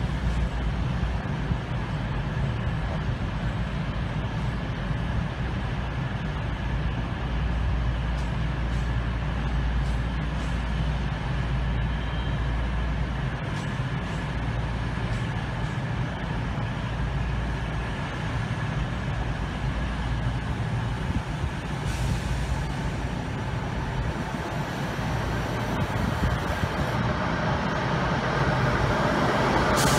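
East Midlands Trains diesel train's engines running with a steady low rumble and a constant mid-pitched tone. Near the end the sound grows louder and brighter as a Southeastern Class 395 Javelin electric train comes into the platform.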